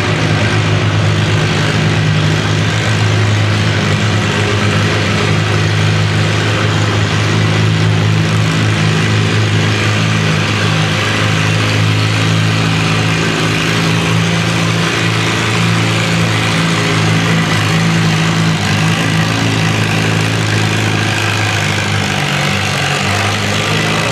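Antique farm tractor engine running steadily under load as it pulls a weight-transfer sled down a dirt track, the engine note holding even throughout.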